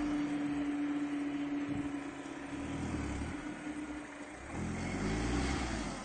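Mitsubishi Pajero 2 engine running under load as the SUV works through deep mud. A steady drone gives way about four and a half seconds in to a lower engine note that rises in pitch near the end.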